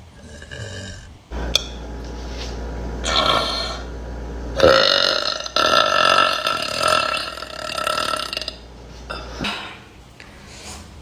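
A woman burping: a short belch about three seconds in, then one long, pitched belch lasting about four seconds.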